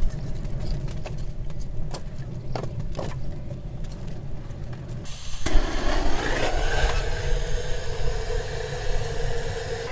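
Wood fire crackling in a brick tandoor, with scattered sharp pops over a low wind rumble on the microphone. About five seconds in, a steady hissing, droning noise takes over.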